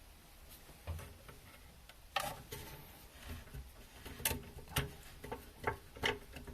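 Irregular sharp plastic clicks and ticks as the Siamp siphon assembly of a push-button toilet cistern is screwed back together by hand, starting about two seconds in and coming more often towards the end.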